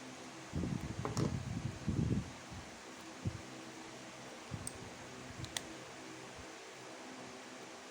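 Hands handling and fitting small plastic Beyblade parts: a cluster of rustling bumps in the first couple of seconds, then a few light clicks, over a steady low hum.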